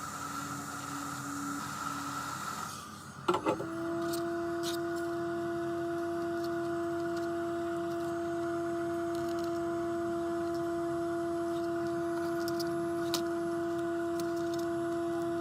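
A repair machine switches on with a couple of clicks about three seconds in and then runs with a steady, even hum.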